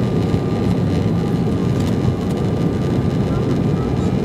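Embraer 195 airliner's GE CF34-10E turbofans and airflow heard inside the cabin during the climb after takeoff: a steady, deep, dense noise with a faint thin tone held above it.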